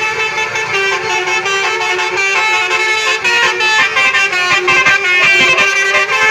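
Tour-bus basuri musical horns (klakson telolet) playing a tune, several horn tones sounding together and stepping up and down in pitch without a break.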